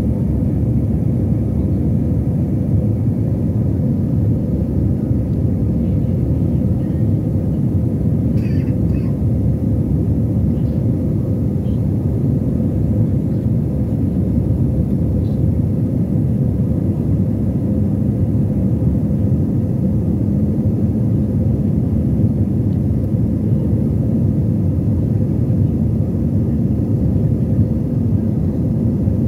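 Steady cabin noise inside an airliner in flight: jet engines and rushing air make a low, even rumble with a faint steady hum.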